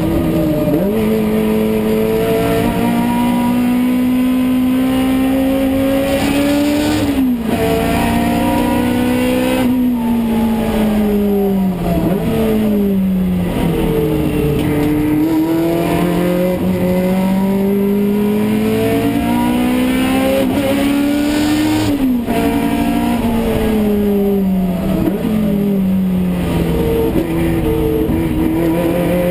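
Toyota AE86 Corolla race car's four-cylinder engine heard from inside the cabin under full racing load. It revs up through each gear with a sharp drop in pitch at every upshift, and its pitch steps down under braking between the straights.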